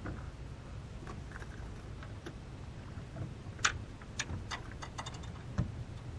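Scattered light clicks and ticks of a just-landed fish and its metal spoon lure being handled on the line, the sharpest about three and a half seconds in, then a quick run of clicks and a single low thump near the end, over a steady low hum.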